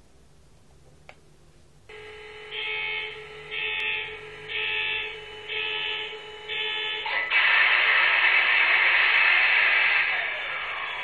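An MTH HO-scale Union Pacific SD70ACE model locomotive's sound system plays diesel sounds through its small onboard speaker. A steady hum sets in about two seconds in, five evenly spaced beeps follow about once a second, and then a much louder rushing sound starts about seven seconds in and eases near the end.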